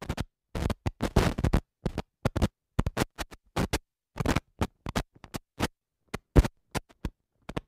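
Old-film countdown crackle sound effect: irregular scratchy pops and crackles, several a second, with short silences between them.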